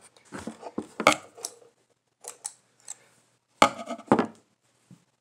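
Scissors snipping fishing line to length, with sharp snips and clicks in two clusters, about a second in and again past halfway.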